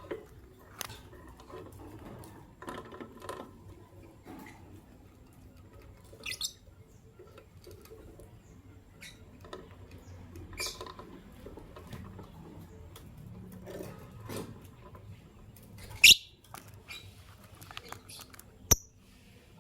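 Caged masked and albino lovebirds making short, scattered high chirps among small scratching and pecking sounds. Near the end there is one loud sharp sound, then a single sharp click.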